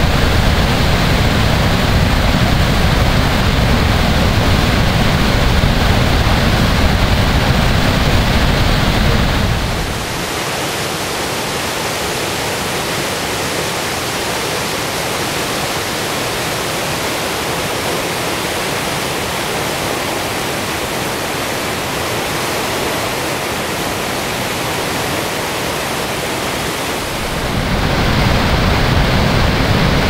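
Niagara Falls roaring: a steady rush of falling water with a deep rumble. About ten seconds in it changes abruptly to the higher, hissier rush of churning rapids with little rumble, and near the end the deep roar of the falls returns.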